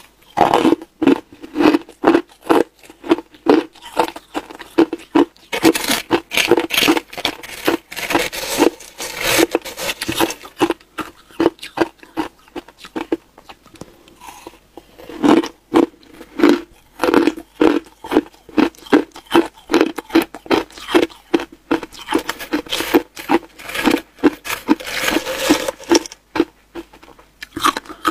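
Crushed ice being bitten and chewed close to the microphone: crisp crackling crunches in a steady chewing rhythm of about two a second, loudest in a few stretches of harder biting.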